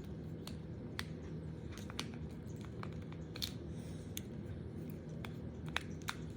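Irregular small clicks from a shape-making fidget toy being twisted and bent into shapes by hand, over a steady low hum.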